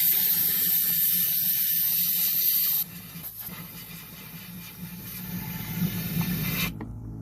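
Compressed air hissing from a blow gun as it blows water out of a mower's fuel tank. A loud burst of about three seconds cuts off sharply. Softer blowing follows for about four seconds and stops near the end.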